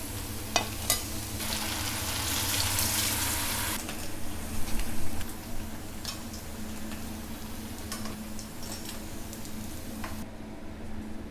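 Sabudana vadas frying in hot oil in a pan: a steady sizzle with a couple of sharp clicks near the start. The sizzle swells louder for about two seconds, crackles loudest around the middle, and cuts off suddenly near the end.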